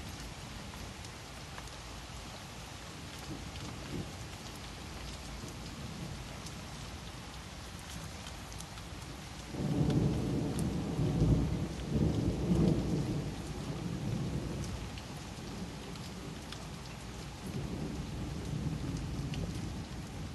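Thunderstorm: steady rain falling, with a peal of thunder that breaks in suddenly about halfway through, rumbles loudly for a few seconds and fades away. A weaker rumble swells again near the end.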